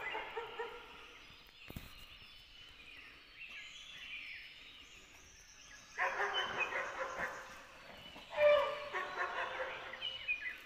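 Dog barking in two bouts, the first starting about six seconds in and a louder one about eight seconds in.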